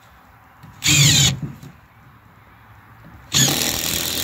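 Cordless drill driving screws into 2x4 lumber. A short burst comes about a second in, with the motor whine climbing in pitch, and a longer run starts near the end.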